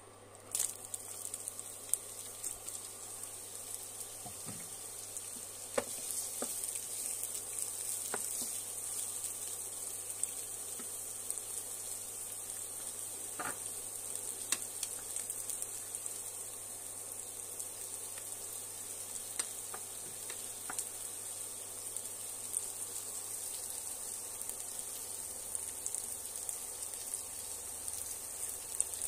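Chopped onions sizzling as they fry in hot oil in a frying pan. The sizzle starts suddenly about half a second in as the onions go into the oil, and holds steady, with occasional sharp clicks and taps over it.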